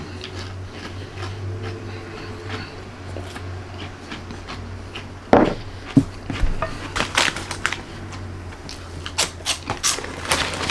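Pork rinds being eaten: scattered crunches and crackles, thickening into a cluster in the second half, over a steady low hum that stops about eight seconds in.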